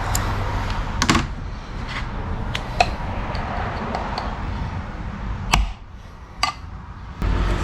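Metal transmission parts being handled and set down on a workbench: a handful of sharp knocks and clinks over a steady background hiss that drops away about two seconds before the end.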